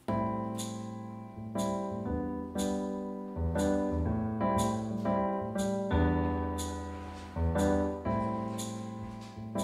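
Piano music played back through SVS Ultra Tower floorstanding speakers powered by a Harman Kardon HK3490 receiver. Sustained chords with new notes struck about once a second, and a light high tick on the beats.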